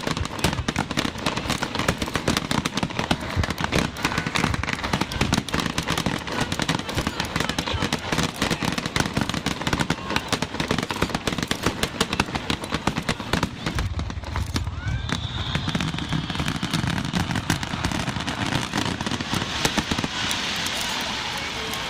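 Fireworks going off in a dense, rapid barrage of crackles and bangs that thins out about two-thirds of the way through, leaving crowd voices.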